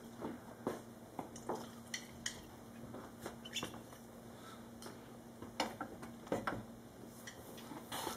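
Scattered small clicks and knocks of glasses, a bottle and dishes being handled on a table, over a faint steady low hum.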